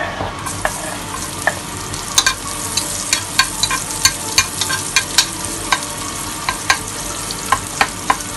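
Chopped garlic sizzling as it hits hot oil in a nonstick pot, the hiss starting about half a second in. From about two seconds on, a metal spoon stirring it clicks and scrapes against the pot a few times a second.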